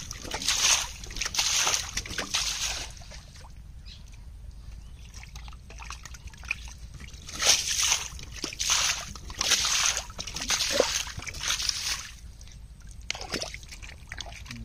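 Hands splashing and sloshing through shallow muddy water while groping in the mud, in irregular bursts with a quieter stretch in the middle.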